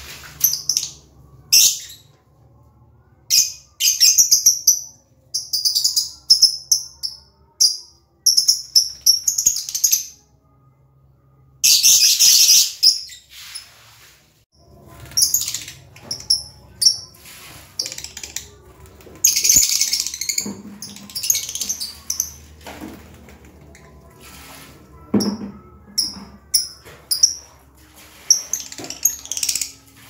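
A flock of caged lovebirds, mostly Fischer's lovebirds, chattering: quick high-pitched chirps and shrill calls come in clusters with short pauses between them. There is a longer harsh shriek about twelve seconds in, and another around twenty seconds.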